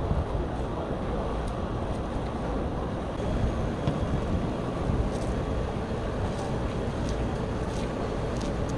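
Steady low rumble and hiss of an open-air street-food stall, with a few faint light clicks in the second half.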